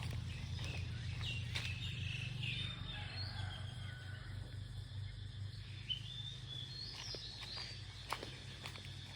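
Birds chirping and calling, with a few short steps or knocks, over a steady low rumble.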